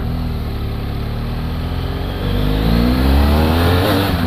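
BMW F800GS parallel-twin engine pulling away at low speed, then accelerating with rising pitch from about two seconds in and getting louder, with a brief dip in pitch near the end.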